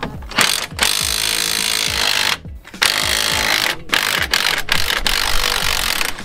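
Power tool run in bursts at a car's front brake: one long run, a short pause about two seconds in, then further runs with several brief breaks.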